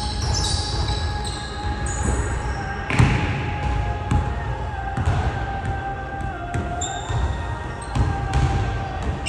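Basketball bouncing and being dribbled on a hardwood gym floor, with short sneaker squeaks and a louder bang about three seconds in.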